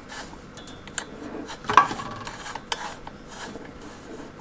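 Chrome hex nut on a beer line being screwed by hand onto a threaded fitting: light scraping and rubbing with a few small clicks, the loudest just before the middle.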